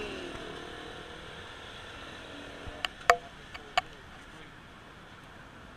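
Roadside ambience: a passing vehicle, its sound falling in pitch and fading away. A few sharp clicks follow about three seconds in, one of them with a short metallic ring.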